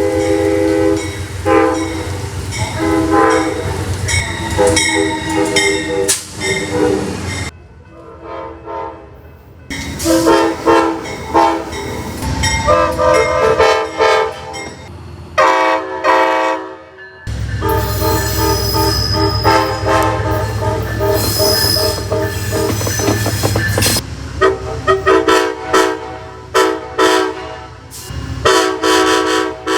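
Amtrak locomotive chime horns sounding a series of long and short blasts, one chord of several notes at a time, over the low rumble of the train. Several separate horn sequences follow one another with abrupt changes between them, and a run of quick short toots comes near the end.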